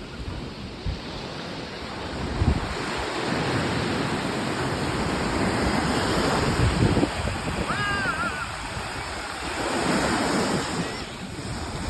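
Sea waves washing onto a beach, the surf swelling and easing over several seconds, with wind buffeting the microphone.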